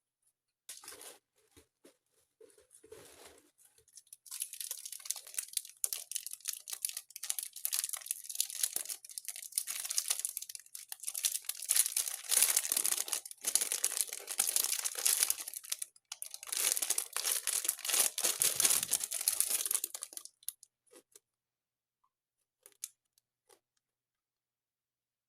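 Crinkling and rustling handling noise in dense, irregular crackles, starting about four seconds in and stopping near twenty seconds, with a couple of short rustles before it.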